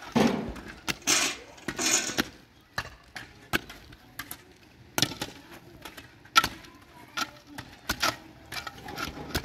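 Irregular sharp knocks and clacks, about two a second, with a few brief scraping noises in the first two seconds.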